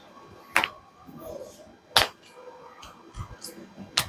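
Three short, sharp cracks spaced about a second and a half apart, the middle one the loudest, with faint scattered clatter between them.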